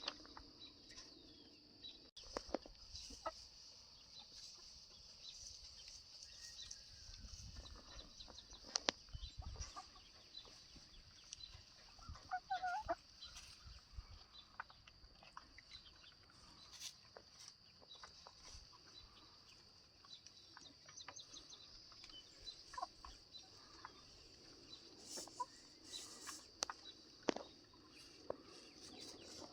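Chickens clucking softly now and then, with a short pitched call about twelve seconds in and scattered small clicks. A steady high-pitched hiss runs underneath.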